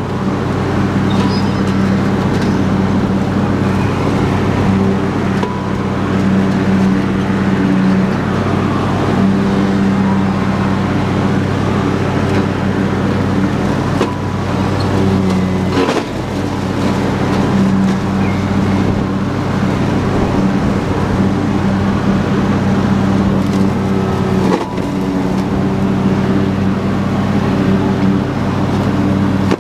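Husqvarna YTH22V46 lawn tractor's V-twin engine running steadily under load, its mower deck cutting through tall grass and brush. The sound drops out briefly twice, about halfway and near the end.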